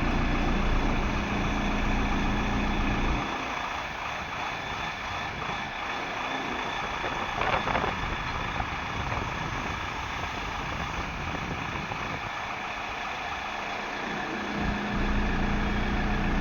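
Diesel engine of a Hyundai 140LC-9 crawler excavator running steadily. Its deep low rumble thins out about three seconds in and comes back near the end. A short burst of noise comes about halfway through.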